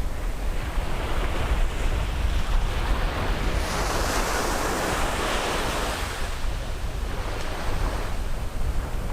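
Sea waves breaking on the shore: one wave washes in, swelling to a loud hiss about three and a half seconds in and fading out after about six seconds, over a steady low rumble of surf.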